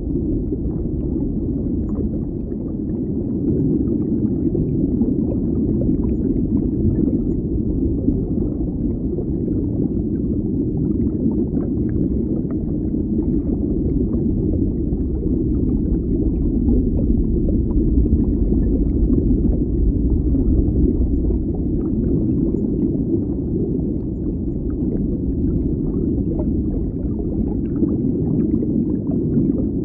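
Steady, muffled bubbling of water with a deep rumble, as heard underwater, sprinkled with many faint small pops.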